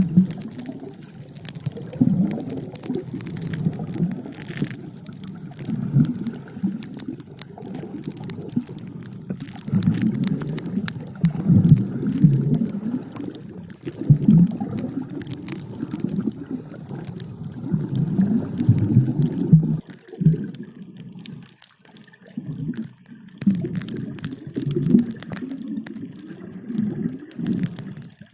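Underwater diving sound: muffled, low bubbling and gurgling that swells and fades every second or two, with a brief lull a little past two-thirds of the way through.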